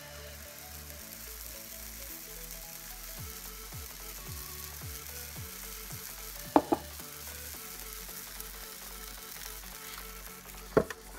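Batter sizzling on a hot, greased waffle iron, a steady hiss. Two sharp knocks come a little past halfway, and a sharp click near the end as the waffle iron's lid comes down.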